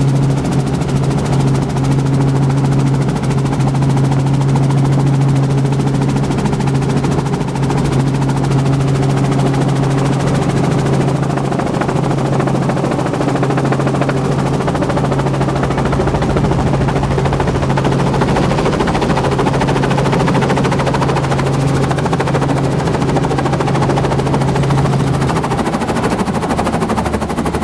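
Small helicopter's rotor and engine heard from inside the cabin during landing: a loud, steady rapid rotor chop over a steady low hum. The hum changes near the end as the helicopter settles on the ramp.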